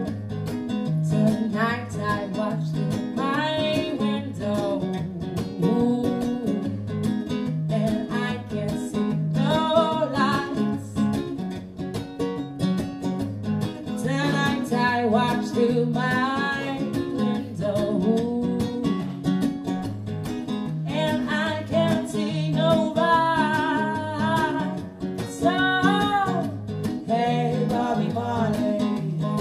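Live acoustic song: two acoustic guitars strummed in a steady rhythm, with a woman singing over them in phrases separated by short instrumental gaps.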